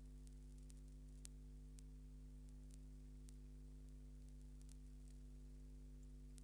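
Steady electrical mains hum with a few faint scattered clicks, the background noise of a silent film transfer; nothing from the logging work itself is heard.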